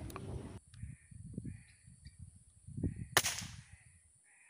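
A scoped air rifle fires once, a single sharp crack about three seconds in. Throughout, a white-breasted waterhen gives short, harsh, repeated calls.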